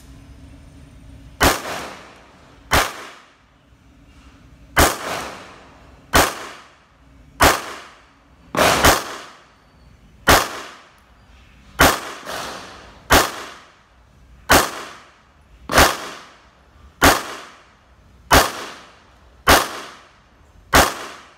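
Jericho 941F pistol fired in slow, evenly paced single shots, about fifteen of them, roughly one every 1.3 seconds, each sharp crack trailing off in a short echo.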